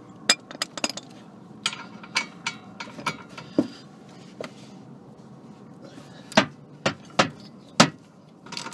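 Metal hand tools clinking and knocking on the brake caliper bolts as a 17 mm socket is worked onto them: about a dozen irregular sharp metallic clinks, the loudest two near the end.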